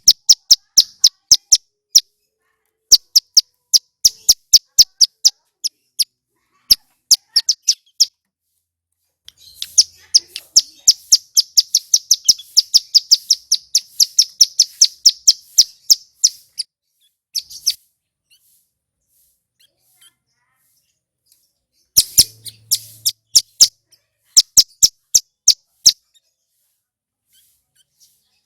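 Ciblek gunung, a mountain prinia, singing: bouts of sharp, high, rapid chip notes separated by short pauses, with one longer, faster trill starting about ten seconds in and running for about seven seconds.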